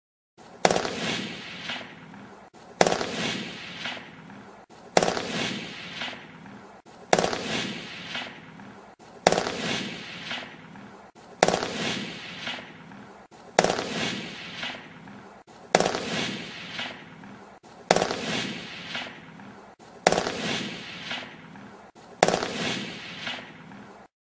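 FAMAS bullpup assault rifle firing, eleven reports spaced about two seconds apart, each a sharp crack followed by a long echoing decay.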